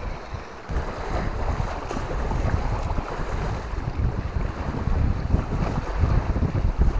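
Wind buffeting the microphone: a gusty, unsteady rumble with a hiss above it.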